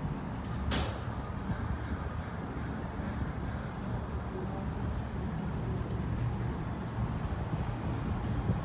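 Steady low rumble of city street traffic, with one sharp click less than a second in.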